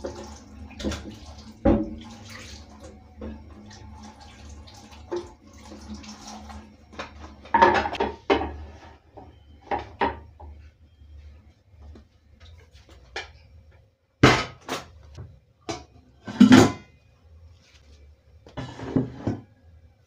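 Washing up at a kitchen sink: water from the tap and dishes clinking, with several louder clatters of plates and cups being handled and set into a plastic dish rack.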